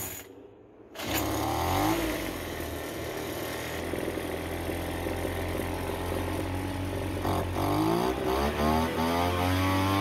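Craftsman leaf blower's small two-stroke engine catching about a second in and running, then revving up in a rising whine from about seven seconds and holding at the higher speed. It was started with the choke lever in the run position, where it had been stalling, and this time it keeps running.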